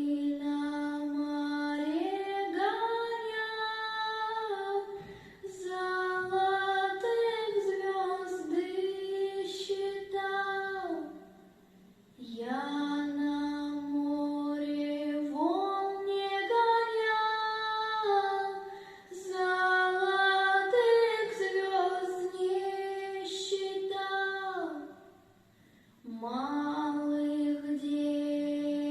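A 12-year-old girl singing a Russian lullaby solo with no accompaniment, in long, slow phrases of held notes with short breaths between them, about a dozen seconds in and again near the end.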